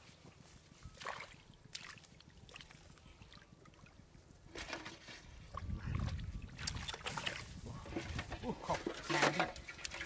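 Hands digging and groping through wet, soft paddy mud: squelching and sloshing, faint at first and louder and busier from about halfway through.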